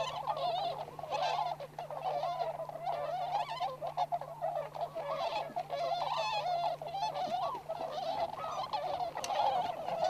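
A flock of tundra swans, mostly of the Bewick's subspecies, calling together: many overlapping calls with no break.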